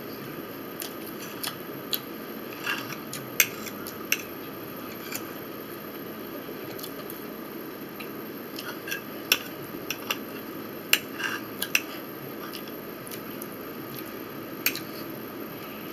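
Metal fork clinking and scraping on a ceramic plate during a meal: irregular sharp clicks, some with a brief ring, over a steady low room hum.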